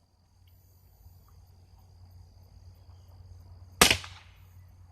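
A single shot from a Crosman American Classic .22 pump-up pellet pistol, one sharp crack near the end with a short tail. Crickets chirp steadily throughout.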